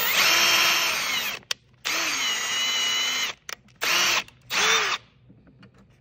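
Milwaukee cordless drill spinning a 6 mm wire brush inside an electrical connector socket to scrub its contacts clean. The motor whine comes in short bursts: one running for about the first second, a longer burst of about a second and a half, then two quick blips near the end.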